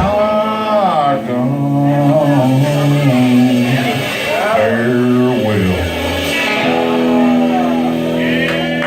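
Live band music: a male singer holds long drawn-out notes that bend up and down over guitar chords.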